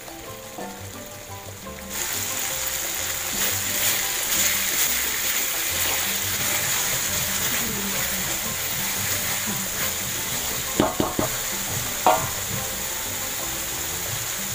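Ground chili spice paste frying in hot oil in a wok: a steady sizzle that gets louder about two seconds in, as the paste is stirred and scraped with a spatula, with a few sharp knocks of the spatula on the wok near the end.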